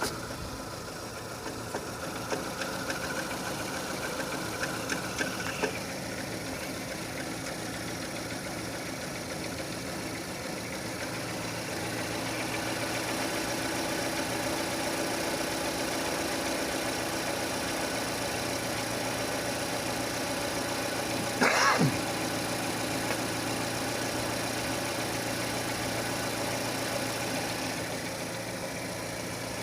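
Renault K4M 1.6 petrol engine idling steadily while warming up, with the knock the owner is tracing, a knock from underneath the car that gets worse as the engine warms. A brief louder noise cuts in about two-thirds of the way through.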